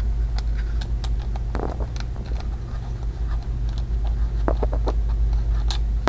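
Faint scratching and a few small clicks of a cover screw being worked out of a motion detector's plastic housing, over a steady low hum.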